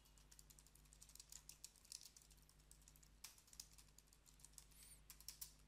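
Faint typing on a computer keyboard: a run of quick, irregular keystrokes.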